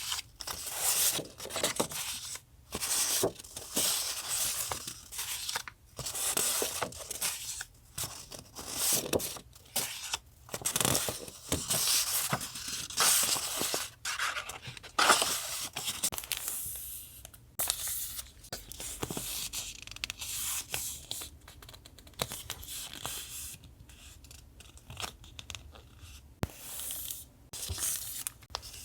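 Paper being handled and torn, a run of short rustling and tearing strokes with brief pauses between them, quieter over the last several seconds.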